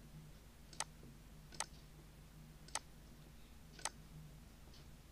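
Four single computer mouse clicks, spaced about a second apart, over a faint steady low hum.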